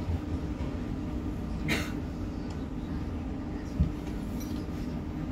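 Inside the upper deck of a London double-decker bus: a steady low rumble from the bus running, with a faint steady hum. A brief hiss comes about two seconds in and a short low thump near four seconds.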